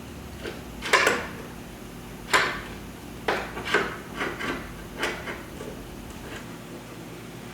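Irregular sharp metallic knocks and clanks, about eight in all and the loudest about a second in, from a sheet-steel quarter valance of a Triumph GT6 being worked straight.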